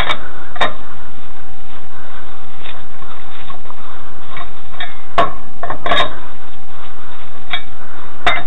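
Cross-shaped lug wrench turning lug nuts off a car's alloy wheel: a handful of sharp metal clicks and knocks spread over several seconds, with two close together about two-thirds of the way in and another near the end.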